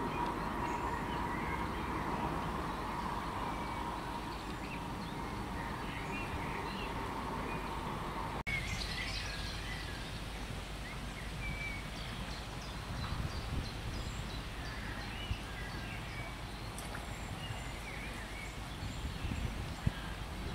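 Outdoor ambience of small birds chirping and calling over a steady low rumble. A steady hum-like tone stops abruptly about eight seconds in.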